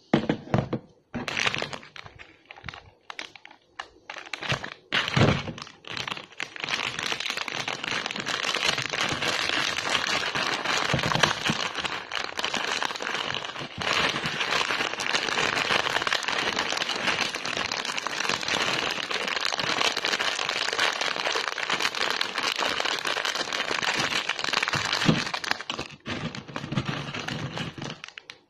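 Crinkly plastic snack packet of Mamee noodle snack being handled, with a few separate knocks and crackles at first. Then a long dense rustle as the packet is worked and the dry, crunchy noodle pieces are poured into a plastic bowl, stopping near the end.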